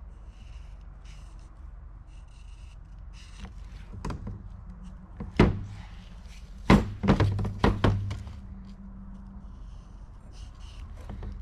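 Steel transmission gears from an Eaton 13-speed auxiliary section knocking against a steel workbench as they are handled and set down. There is one sharp knock about five seconds in, then a cluster of four about a second later, with faint scratchy handling noise before them.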